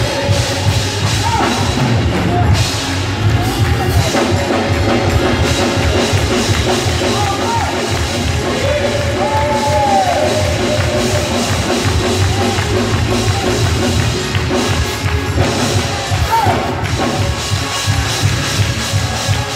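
Live gospel praise-break music: drum kit and band playing continuously, with singers' voices sliding up and down over it and a congregation clapping along.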